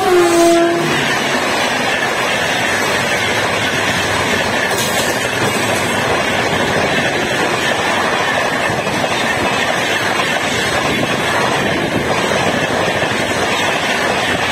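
A WAP-4 electric locomotive's horn drops in pitch as it passes and stops within the first second. Then comes the steady rush of wheels and air as a long rake of passenger coaches speeds past close by.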